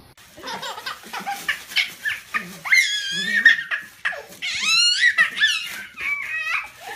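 A puppy's high-pitched yips and whines mixed with a baby's squealing laughter, with long wavering squeals from about three seconds in.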